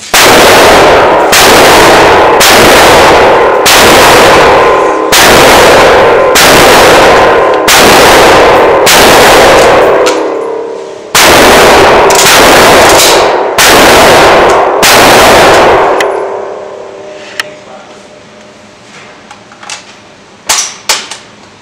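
Shotgun fired about thirteen times at a steady pace of roughly one shot a second, with a short break about halfway through. Each shot is very loud, with a long ringing tail off the walls of the indoor range. A few faint clicks of the gun being handled come near the end.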